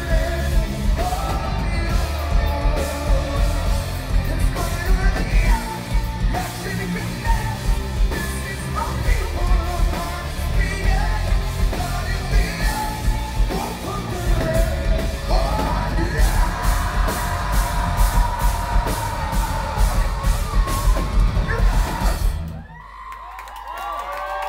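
Rock band playing live and loud: vocals into a microphone over electric guitars, bass and rapid drum hits. The song stops suddenly about 22 seconds in, and the crowd cheers and yells.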